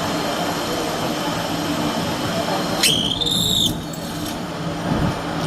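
Machinery running with a steady noisy hum, and a brief high whistle-like squeal starting sharply about three seconds in.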